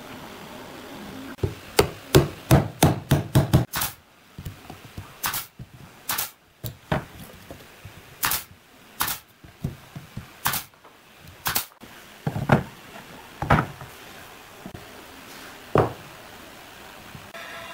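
Sharp knocks on pine workpieces as doweled, glued parts are driven together and fastened. A quick run of about four knocks a second comes near the start, then single knocks about a second apart that stop shortly before the end.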